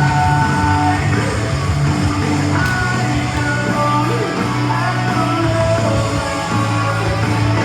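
Rock song with a sung vocal over a steady band backing, playing continuously.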